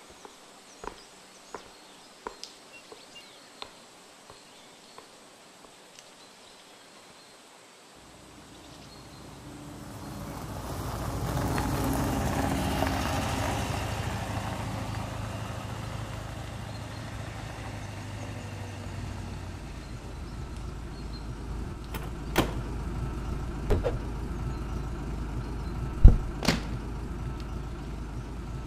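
An open-topped WWII military car drives up, its engine sound swelling about eight seconds in and then settling to a steady low running idle. Several sharp knocks come near the end.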